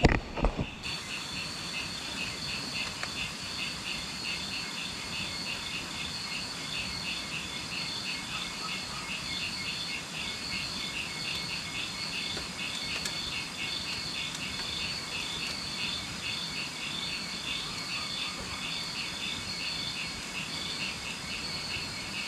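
A chorus of insects chirping steadily, a fast, even, high-pitched pulsing that does not let up.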